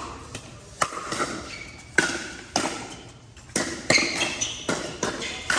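Pickleball paddles striking the plastic ball during a rally: a string of sharp pops at an uneven pace, one every half second to a second, echoing in a large hall.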